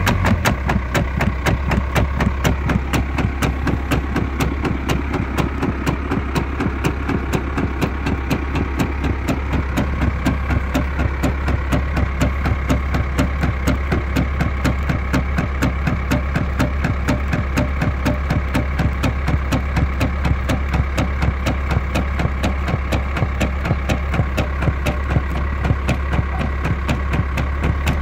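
Tractor engine running steadily under a fast, even clatter from a BVL Topstar block cutter's serrated knife as it cuts down through straw bales.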